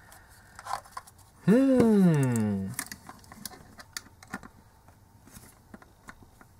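A man's wordless hum, about a second long, that rises briefly and then falls in pitch; it starts about a second and a half in and is the loudest sound. Around it are small scattered clicks and scrapes of a precision screwdriver probing the plastic housing of a USB charger.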